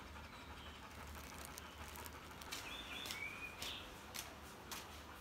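Faint footsteps of slip-on sandals on a brick path, roughly two steps a second starting about a second and a half in, with a few short bird chirps near the middle.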